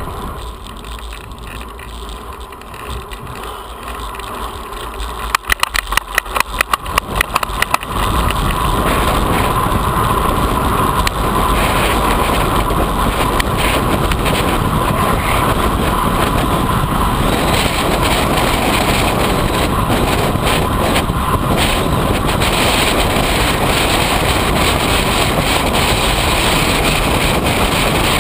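Wind noise on the camera microphone of a road bike being ridden along an asphalt path. A few seconds in there is a brief run of sharp ticks, about four a second. From about eight seconds in the wind noise becomes louder and steady.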